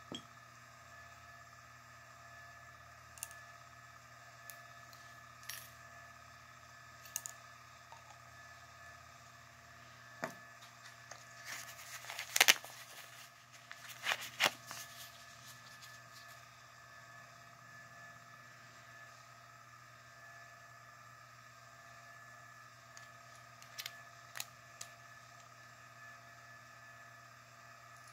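Scattered small metallic clicks and clinks of a euro lock cylinder and hand tools being handled, with a burst of louder clinks about halfway through, over a faint steady hum.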